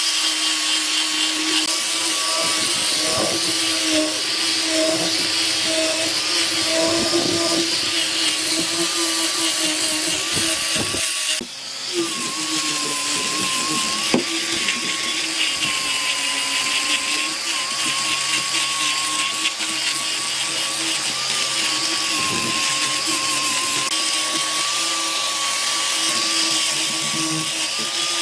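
Handheld power tool running continuously on wood, its motor whining at a steady pitch, with a brief dip about eleven seconds in before it picks up again.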